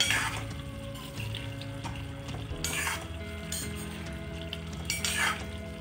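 A steel ladle stirring chicken curry in a kadhai, scraping through it in three strokes over a steady sizzle as the chicken cooks in the water it has released.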